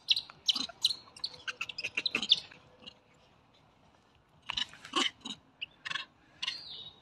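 Quick, high-pitched animal chirps and squeaks in rapid clusters, with a pause of about two seconds in the middle.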